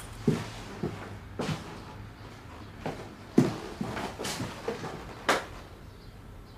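Footsteps on a wooden floor and a few light knocks of objects being handled, irregularly spaced, the sharpest about three and a half seconds in.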